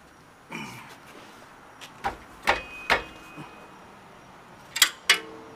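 Metal hand tools clinking and knocking: about five sharp metallic clinks in two groups, some of them ringing briefly, as tools are handled and set down.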